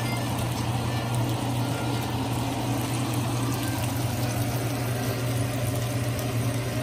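Beef burger patties sizzling steadily in a hot nonstick frying pan, over a constant low hum.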